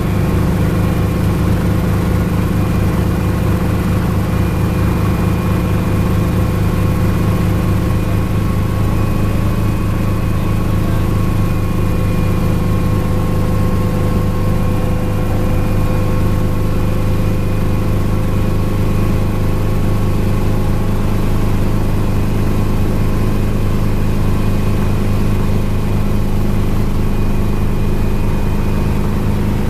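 Small helicopter's engine and rotor running steadily on the ground, heard from inside the cockpit: a loud, even drone with a fast regular beat and a few steady whining tones above it.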